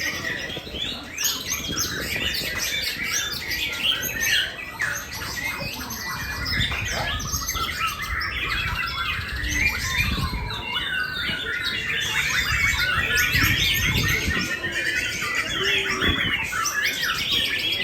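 Many caged songbirds singing at once in a dense chorus of overlapping chirps, trills and rapid repeated notes, with no pause.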